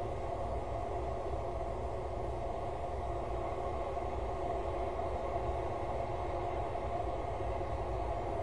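Steady low rumble with a constant hum, unchanging throughout, with no distinct events or bird calls.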